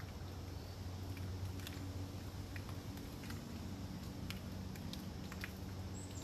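Scattered raindrops ticking and pattering on the leaves of a forest after a storm, over a steady low rumble.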